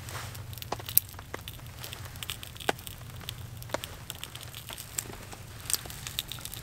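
Small kindling fire of birch bark and thin twigs crackling, with irregular sharp pops, as it is just catching.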